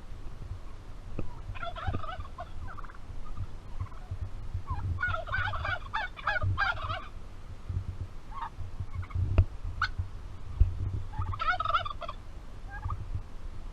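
Turkey gobbling three times: short rattling gobbles about two seconds in and near the end, and a longer one in the middle. A low rumble runs underneath.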